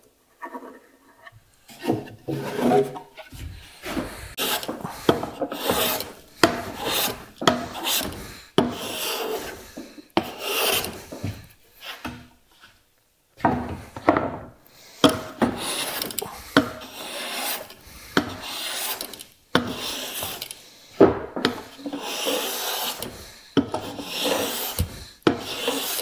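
Hand plane taking shavings off the side of a wooden drawer, in repeated rough strokes about a second long with short pauses, to fit the drawer to its opening.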